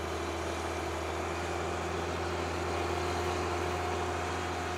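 Tracked snow groomer (snowcat) running steadily as it crawls across the snow: a low engine drone with a steady hum above it, and a higher whine joining about three seconds in.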